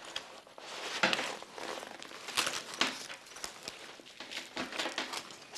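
Rustling and crinkling of a pump carry bag being handled as an infusion pump is slid into its clear-windowed pouch, in irregular rustles with a few short knocks.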